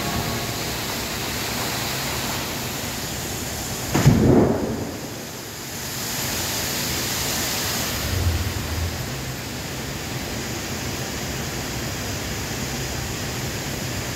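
Fountain jets and a waterfall splashing into a pool, a steady rush of falling water. About four seconds in comes a single loud boom that rumbles away over about a second.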